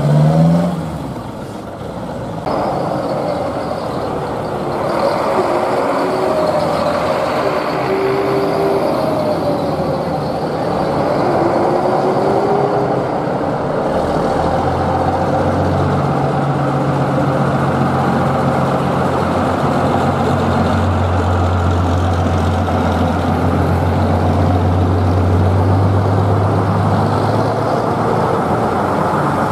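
Street traffic of heritage buses: at the very start a Ford Anglia pulls away with a rising engine note, then a wavering gear whine, and from about halfway a vintage bus's heavy diesel engine running with a steady low note that grows loudest as the bus and a half-cab coach pass close by.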